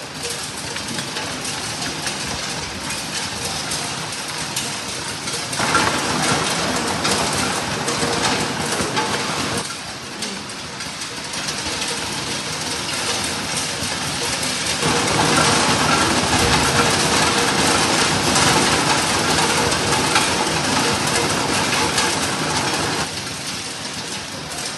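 Optical colour sorting machine running a load of gum arabic lumps: a dense, steady rattle and crackle of the pieces feeding through, with rapid clicks throughout. It swells louder twice, from about six to ten seconds in and from about fifteen to twenty-three seconds in.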